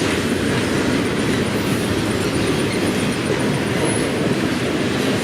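The last cars of a BNSF intermodal freight train rolling past close by: a steady, loud noise of steel wheels running on the rails.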